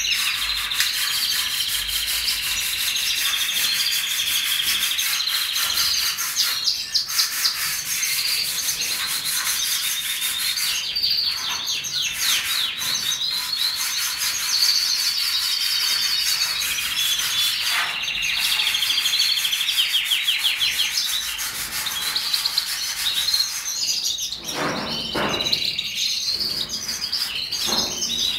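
Many small caged birds chirping and trilling at once, a dense unbroken chorus of high calls. Near the end, a few lower rubbing sounds cut in.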